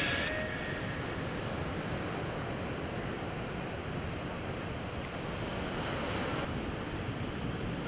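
Steady rushing outdoor wind, with the low rumble of wind buffeting the microphone.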